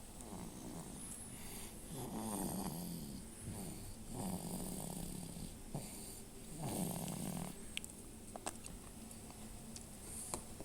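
A sleeping child snoring: three snores about two seconds apart, each lasting about a second. After the third the snoring goes quiet, leaving a few faint clicks.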